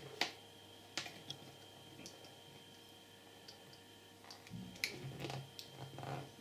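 A few sharp plastic clicks and taps from a MagSafe power adapter's plastic case being handled and pressed together, the loudest just after the start, then a couple of seconds of rubbing and scuffing as fingers work the case halves home.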